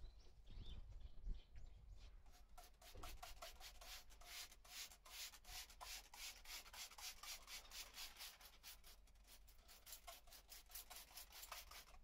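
Faint, quick brush strokes rubbing bead sealer onto the rubber tyre bead at the rim, about five short scratchy strokes a second. They start a couple of seconds in and stop just before the end.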